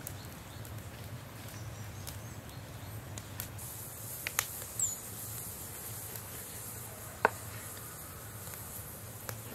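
Kitchen knife cutting raw meat into cubes on a wooden cutting board: a few sharp knocks of the blade against the board, a couple of seconds apart, over a steady low hum and a faint high hiss.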